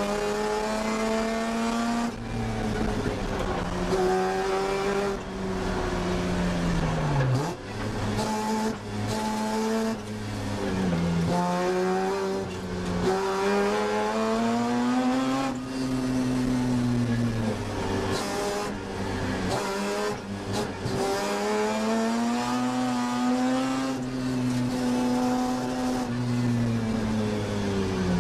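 1982 Mazda RX-7's rotary engine at racing speed, heard from inside the cockpit: its note climbs under hard acceleration and falls away under braking, over and over, with sudden drops in pitch at the gear changes.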